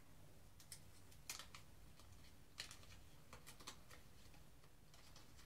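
Faint, scattered small clicks and paper crinkles as a new Shark Super Chrome double-edge razor blade is slid out of its pack and unwrapped by hand.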